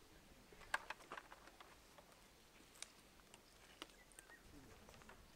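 Near silence broken by a few faint, sharp clicks and taps, a cluster about a second in and single ones later: an F1 firefighter helmet being settled on a head and its chin strap fastened.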